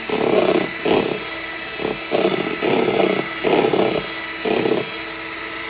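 Proctor Silex electric hand mixer running steadily, its twin beaters whipping egg whites and cornstarch toward stiff peaks, with irregular louder surges as the beaters work through the mix.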